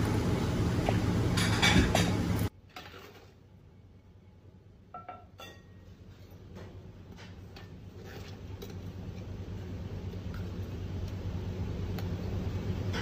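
Steady kitchen hum with a few clicks of handling, cut off abruptly about two and a half seconds in. Then quieter, with scattered clinks of a utensil against a stainless-steel cooking pot while a low background noise slowly grows.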